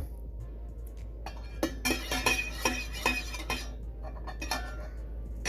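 A utensil clinking against dishes: a quick run of light clinks, some with a short ring, lasting about three seconds and starting a little over a second in.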